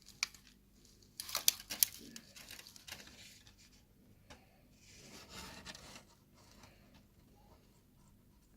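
Dry crackling and crinkling as a packet of very dry moss and its packaging are handled and opened. It comes in short bursts of crackles about a second and two seconds in, with a softer rustle around five seconds.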